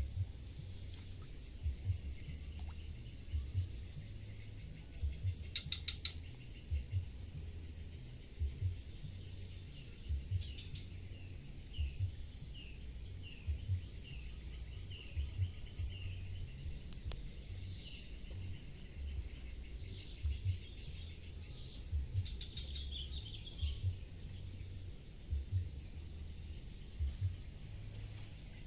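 Insects droning steadily at a high pitch, with a bird calling a run of short, repeated falling notes about a third of the way in and more chirps later. Frequent short low thumps come through underneath.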